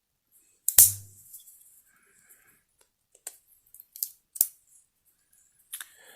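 Leatherman Free P4 multi-tool being handled as its fold-out tools are closed and opened. A loud metallic snap comes about a second in, then several lighter sharp clicks.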